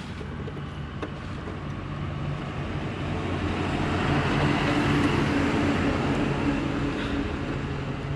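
A motor vehicle running past on the road, its engine hum and tyre noise growing louder toward the middle and then easing off.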